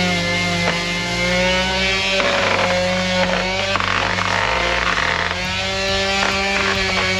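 Power sander's motor running on a bare aluminium wheel, a steady whine that sags in pitch a few times as it is pressed into the work. Background music plays underneath.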